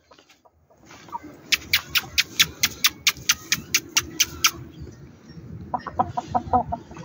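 Young Shamo chickens clucking, a quick run of short clucks near the end. Before it comes a fast, even train of about a dozen sharp clicks, roughly four or five a second.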